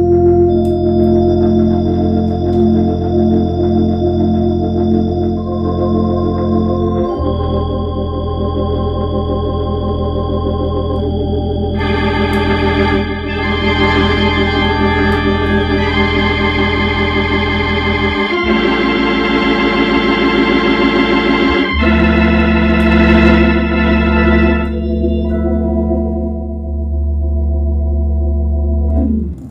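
Hammond organ played through a Leslie speaker: slow, held chords over sustained bass notes, changing every few seconds and growing fuller and brighter about halfway through. The final chord is released right at the end.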